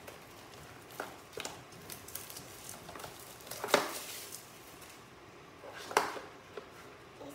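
Rustling and crinkling as clear plastic shrink wrap is pulled off a cardboard album box, with a few sharp knocks and taps as the box is handled on a wooden floor; the loudest knocks come a little before the middle and again near the end.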